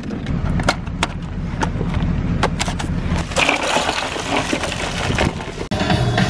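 Bagged ice being handled and broken up, a run of sharp cracks and crunches, then ice cubes poured from the bag into a plastic cooler, rattling down onto the cans for about two seconds. It cuts off abruptly near the end, where music with drums begins.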